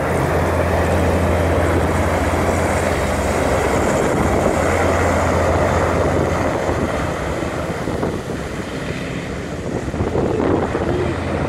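Griffon 12000TD passenger hovercraft running under power as it drives off the shingle onto the sea: a loud, steady deep drone from its engines and twin ducted propellers over a rush of air. It grows a little fainter about eight seconds in as it pulls away.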